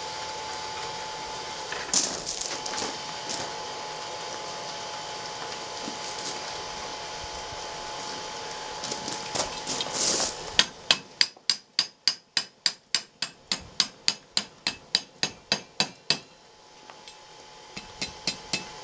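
A steady hum with a few metal clinks. About ten seconds in, a fast, even run of hand-hammer blows on red-hot 3/8 rebar over the anvil horn begins, about four a second for some five seconds, bending the end into a tight pigtail. A few lighter taps follow near the end.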